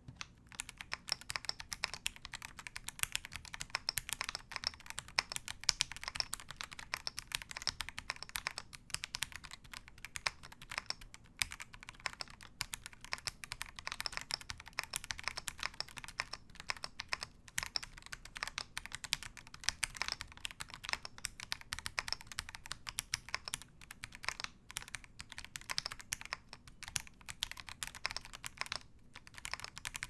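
Continuous fast typing on a FEKER Alice 80 gasket-mount ergonomic mechanical keyboard with Gateron G Pro 2.0 Yellow linear switches, a flexible PC plate and thick silicone dampening inside the case. The keystrokes sound muted, with no rattle, and pause briefly a few times.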